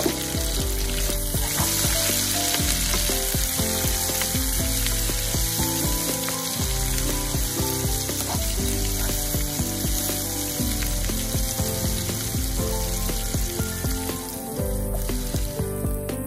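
Chopped onion, green chilli and pandan leaf sizzling steadily as they fry in hot oil in a nonstick wok, stirred with a wooden spatula. Background music plays underneath.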